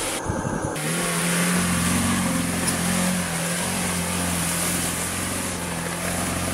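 Lada Niva 4x4's engine running as the SUV drives through slushy mud and passes close by. It settles into a steady drone about a second and a half in.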